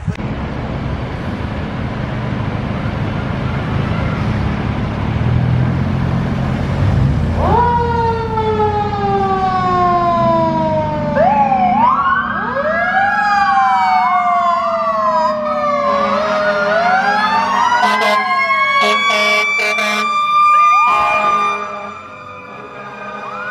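Fire apparatus departing on a call: a heavy diesel rumble at first, then fire truck sirens from about seven seconds in. One siren falls in a long slow wail, and soon several sirens overlap, rising, falling and yelping over each other.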